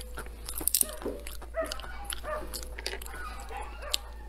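Macadamia nut shells cracking open in a few sharp cracks, the loudest about a second in and another near the end. Repeated short whining calls sound throughout.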